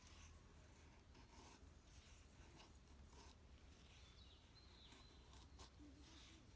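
Faint, scattered scraping and rubbing strokes of slow hand work over a low steady hum.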